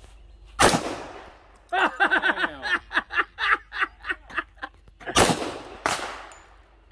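Handgun shots: one about half a second in with a short fading echo, then two more about five seconds in, under a second apart.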